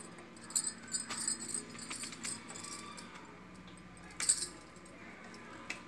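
Faint knife clicks and small metallic clinks while a brinjal is cut into wedges by hand over a steel bowl. The loudest clink comes about four seconds in.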